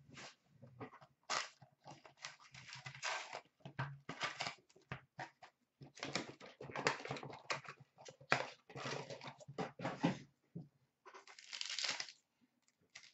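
Trading-card box and packs being handled and torn open: irregular rustling, scraping and tearing of cardboard and paper pack wrappers, with a denser stretch of tearing near the end.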